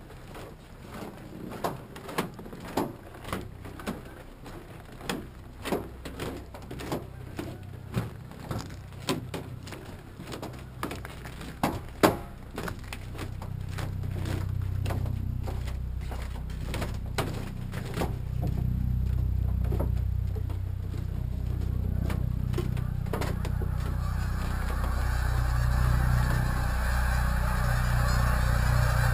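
Footsteps on snow-dusted wooden dock boards, about two a second, over a large flock of geese honking. The flock grows louder through the second half, and near the end, as the footsteps stop, the mass of honking from the birds in flight swells into a dense, continuous wash.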